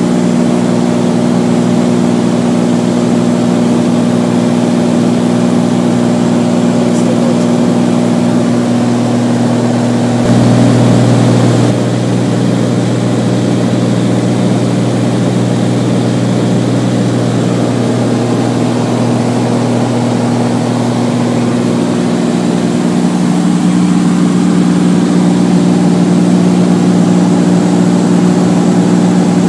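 Beechcraft Bonanza's piston engine and propeller droning steadily in cruise, heard inside the cabin. The tone shifts about ten seconds in and settles back about twenty-two seconds in.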